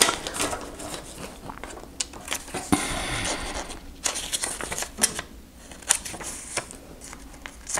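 Scissors snipping and paper being handled: a run of small clicks and rustles, with a longer rustle about three seconds in.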